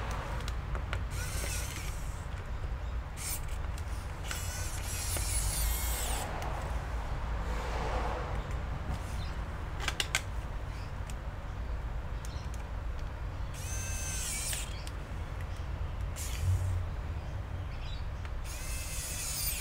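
Electric precision screwdriver driving screws in several short runs, its small motor whirring up in pitch each time, with a few sharp clicks in the middle.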